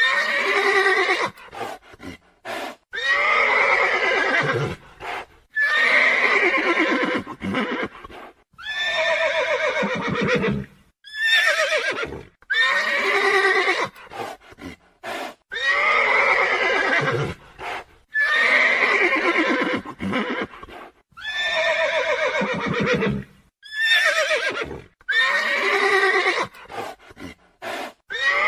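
Horse whinnying over and over, one descending call about every two and a half seconds, with short clicks in the gaps between calls.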